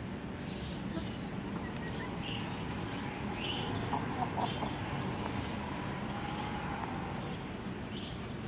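Hens clucking: a short cluster of calls about four seconds in, with a few brief higher chirps around it.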